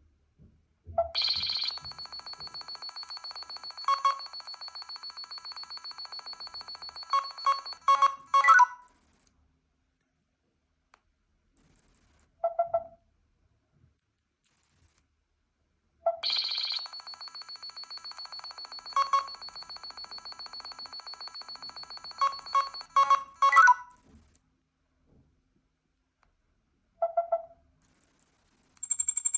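Electronic beeps and synthesized tones in a ringtone-like sequence. The same sequence plays twice, with short high beeps and dead silence between the two runs.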